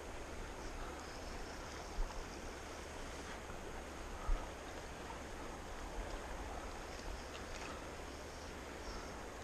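Steady rush of a fast river's current flowing past, an even hiss of water with no pitch to it. Two short low thumps break through, about two seconds in and again a little after four seconds.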